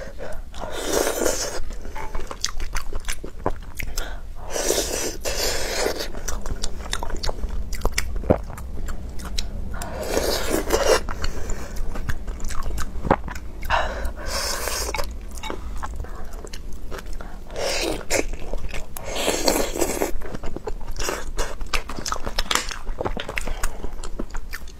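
Close-miked eating: wet chewing and biting with many small mouth clicks. A louder breathy swell about a second long comes every few seconds.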